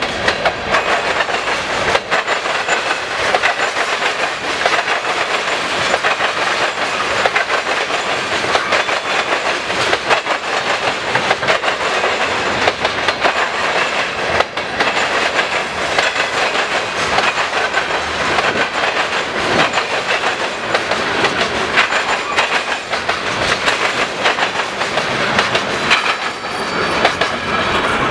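Freight train cars, covered hoppers and tank cars, rolling past with a steady clickety-clack of steel wheels over rail joints and the crossing's diamond.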